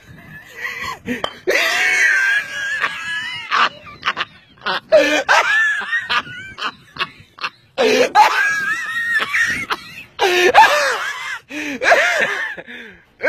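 People laughing and shrieking in several high-pitched bursts, with short sharp knocks in between.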